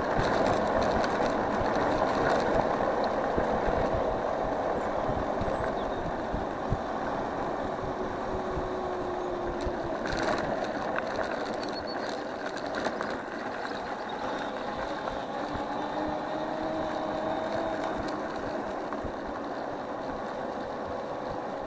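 Electric scooter riding noise: a steady rumble of the tyres rolling over the path with light rattles from the scooter, and a faint motor whine now and then.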